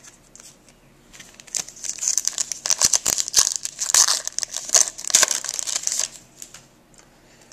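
2010-11 SP Authentic hockey card pack's foil wrapper being torn open and crumpled by hand: a run of loud crinkling and tearing from about a second and a half in until about six seconds in.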